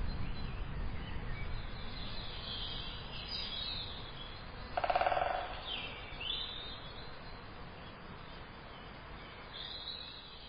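Scattered high bird chirps over a faint outdoor background noise, with one short, rapid buzzing trill about five seconds in. The whole soundscape fades out toward the end.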